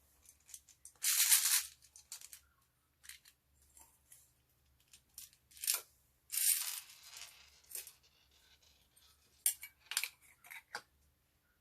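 Slime being worked by hand: wet, sticky squishing and popping, with two longer bursts about a second in and around six and a half seconds in, and a few short sharp pops near the end.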